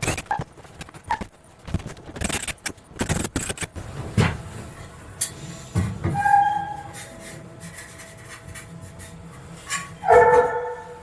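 Scattered knocks and clatter of hand work tearing out a boat's interior, with a short pitched sound about six seconds in and a louder pitched sound about ten seconds in.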